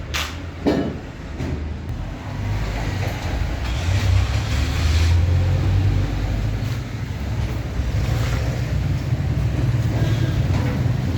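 Industrial laundry machine running with a steady low rumble that swells about two seconds in, with a couple of sharp knocks in the first second.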